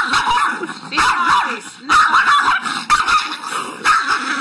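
Small dogs yapping and whining excitedly in short bursts, about one a second.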